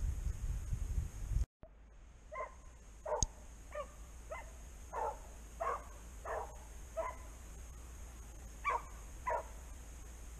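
Beagle baying in a steady run of short barks about one and a half a second, with a brief pause near the end: a hare hound giving tongue as it follows a hare's scent. Before that, about a second and a half of low wind rumble on the microphone cuts off abruptly, and there is a single sharp click about three seconds in.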